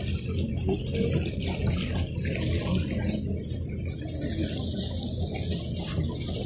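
Steady rush of sea water along the hull of a motor ship under way, over a low continuous rumble.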